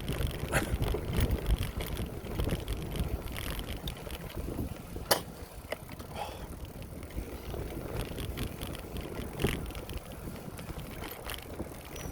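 Wind buffeting the camera microphone over road noise while riding a bicycle, with a few sharp clicks or knocks, the clearest about five seconds in and again near nine and a half seconds.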